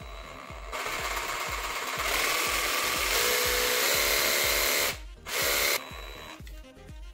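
Parkside 20 V cordless jigsaw running with no load: one run of about four seconds starting about a second in, its pitch stepping up partway through, then a second short burst under a second long. Background music with a steady beat plays underneath.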